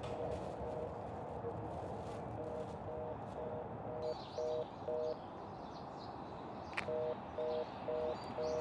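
Electronic beeping: two steady tones sounding together and pulsing about two and a half times a second, in runs of several beeps with short breaks, over a steady background hiss. A single sharp click sounds about seven seconds in.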